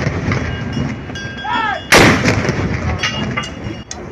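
Warship saluting gun firing a single loud shot about two seconds in, with a long echoing tail; the tail of the previous shot is dying away at the start, the salute rounds coming about two and a half seconds apart.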